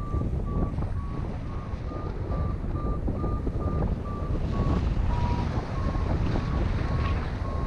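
Paragliding variometer beeping in short, evenly spaced beeps, about two and a half a second, over heavy wind noise on the microphone. The beeps signal the glider climbing in lift. The pitch dips briefly about five seconds in as the climb weakens.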